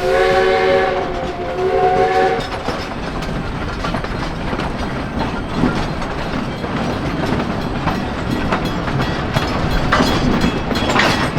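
The steam whistle of D&RGW 491, a narrow-gauge 2-8-2 steam locomotive, sounds a steady chord and stops about two and a half seconds in. The train then rolls on with steady wheel clatter and clicking over the rail joints.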